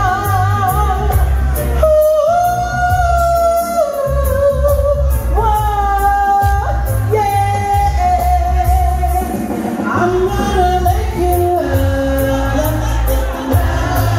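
Live lovers rock reggae performance through a PA: a woman sings long held notes, some with vibrato, over a heavy, pulsing bass line.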